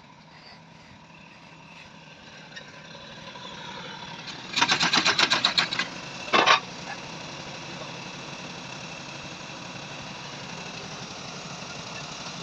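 Massey Ferguson tractor engine running steadily, growing louder over the first few seconds. Partway through comes a loud burst of rapid rattling clicks lasting just over a second, then a single sharp knock.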